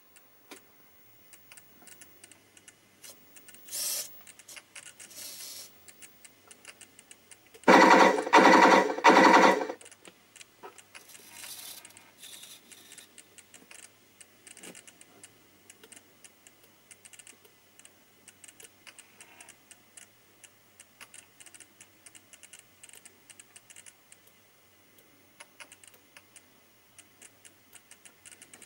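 Scattered light clicking, as of small switches or relays, runs throughout. About eight seconds in come three loud, pitched electronic sound effects in quick succession from the Beier SFR-1-D sound and function module's speaker, with a short high hiss about four seconds in.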